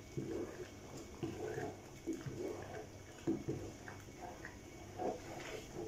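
Thick fumbwa leaf stew bubbling and plopping at the boil in an aluminium pot, stirred with a wooden spoon, in short irregular wet blips.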